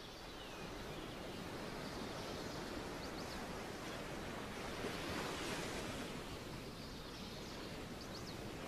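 Steady rushing outdoor ambient noise with a few faint high chirps about three seconds in and again near the end.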